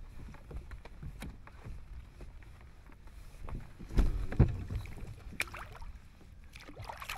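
A pike being handled and released over the side of a sit-on-top fishing kayak: scattered small knocks against the plastic hull, two heavy thumps about four seconds in, then light water noise near the end as the hand goes into the water.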